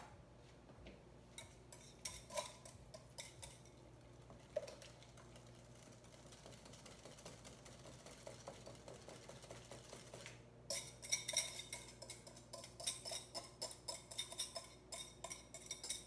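A wire whisk beating soaked chia seeds into a peach and coconut milk blend in a glass mixing bowl: a few light clinks at first, then, about two-thirds of the way in, a fast run of clinking as the whisk strikes the bowl's sides.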